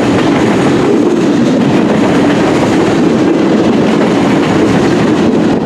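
Freight train rolling past on the rails: a steady, loud rumble with wheel clatter.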